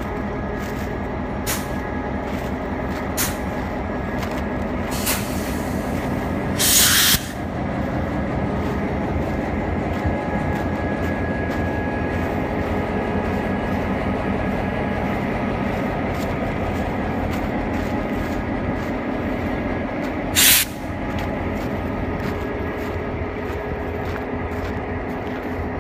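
Diesel engine of a Herzog tie-train locomotive idling steadily while the train stands waiting. Two short, sharp bursts of air hiss come from the train, about seven seconds in and again about twenty seconds in.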